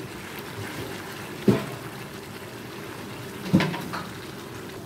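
A spatula stirring a thick chicken curry in a frying pan, the wet sauce squelching, with two knocks about two seconds apart.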